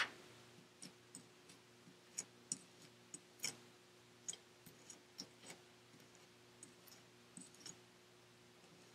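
Near silence with a faint steady hum, broken by a dozen or so faint, irregularly spaced small clicks and taps from a tool working royal icing through a cookie stencil.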